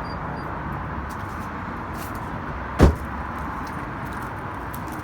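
2008 VW Golf City's 2.0-litre four-cylinder running steadily at idle through a 2.5-inch straight-pipe exhaust with no muffler. A single loud thump comes about three seconds in.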